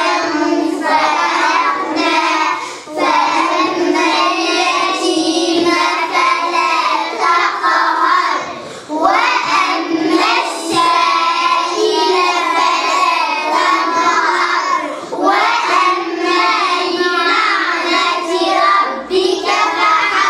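A class of young children chanting Quranic verses together in unison, in phrases of a few seconds with brief pauses between.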